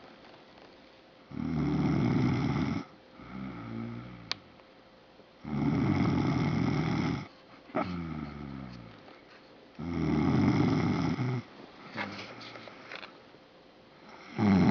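Heavy snoring: loud rasping breaths in, about every four seconds, with quieter whistling breaths out that fall in pitch between them. A single sharp click comes about four seconds in.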